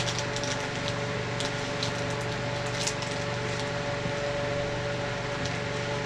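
Steady mechanical hum with a faint steady tone, broken by a few light clicks and rustles.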